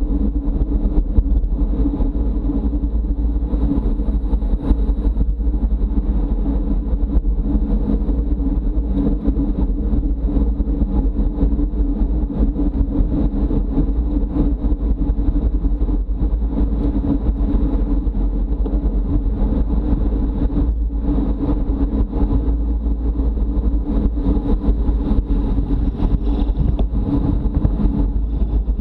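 Steady wind and road noise on a racing bicycle's camera microphone at speed: an unbroken, deep rumble with a steady hum above it.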